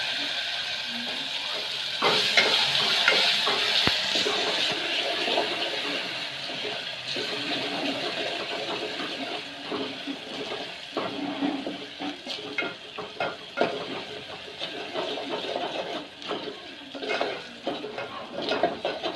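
Onion and spice masala frying in oil in a pan with a steady sizzle. A spoon stirs it, scraping and clinking against the pan, with more frequent knocks in the second half.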